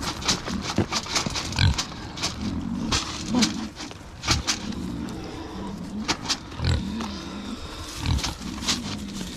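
Kunekune pig grunting again and again as it walks, short low grunts every second or so, with footsteps crunching over gravel and dry leaves.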